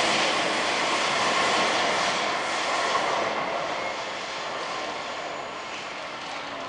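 E7-series Shinkansen bullet train running past on the elevated track. Its rushing noise fades steadily as it moves away.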